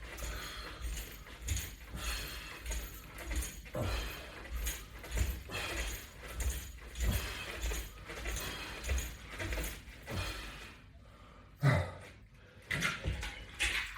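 Metal clips and hardware of resistance bands on a latch bar jangling and clinking over and over as the bands are pulled through repeated semi-squats, with a short lull near the end.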